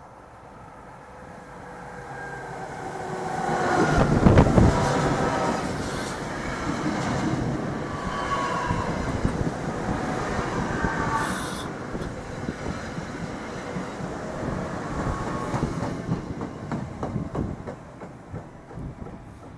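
NJ Transit Arrow III electric multiple-unit train approaching and running past at speed. It is a rising rush that is loudest about four seconds in, then a steady rumble and clatter of wheels on rail as the cars go by, with a few brief whining tones. The sound drops to a quieter rumble near the end.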